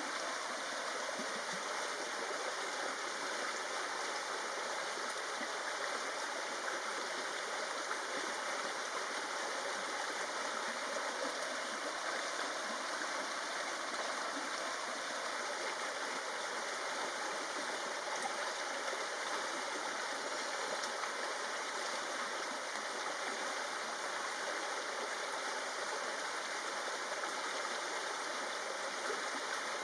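Steady flowing water of a stream, an even rushing noise without pauses or changes.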